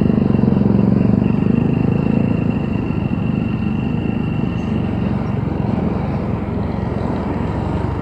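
Motorcycle engine running at a steady cruise, heard from the rider's seat, with road and wind noise.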